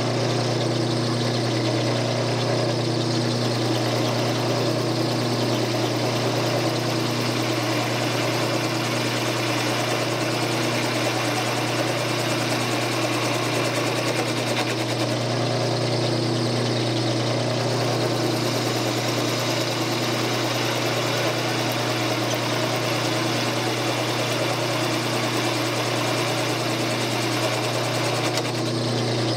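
Wood lathe running with a steady hum while a hand-held turning tool cuts into the spinning wooden workpiece, the shaving noise riding over the motor.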